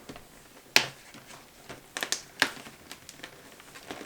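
Cardboard door of a chocolate advent calendar being pried open by hand: a few sharp cardboard clicks and snaps, one about a second in and a cluster of three about two seconds in.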